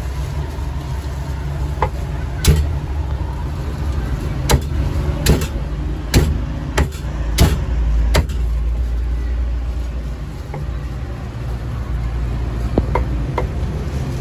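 Cleaver chopping roast pork on a round chopping block: irregular sharp chops, most of them in the first half and two more near the end, over a steady low rumble of street traffic.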